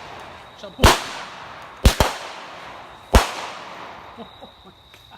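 Firecrackers going off: four sharp bangs about a second apart, with two of them in quick succession in the middle.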